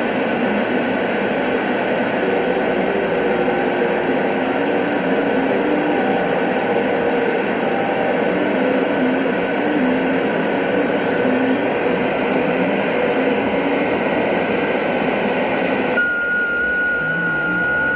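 Shortwave radio receiver tuned to 14075 kHz, giving out the strange noises of an unidentified station: a dense, continuous hissing data-like signal with faint wavering tones in it. Near the end the hiss thins and a steady high whistle comes in.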